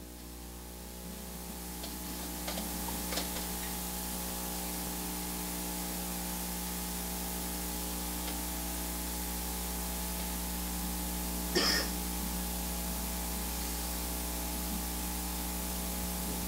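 Steady hiss and electrical hum, the hiss growing over the first few seconds, with a few faint clicks early on and one short burst of noise about twelve seconds in.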